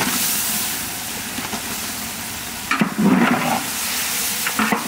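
Raw chicken pieces dropped into hot oil and fried spice paste in a large metal pot: a sudden loud sizzle that settles into steady frying. From about three seconds in, a long iron ladle scrapes through the pot as the meat is stirred.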